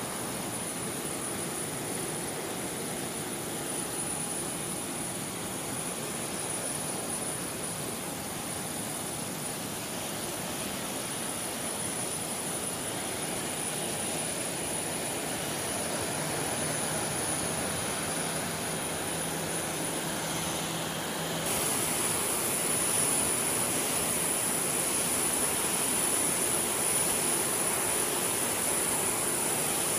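Jet aircraft engines running: a steady rush of jet noise with a thin high whine. About two-thirds of the way in the sound changes suddenly and the high whine gets louder.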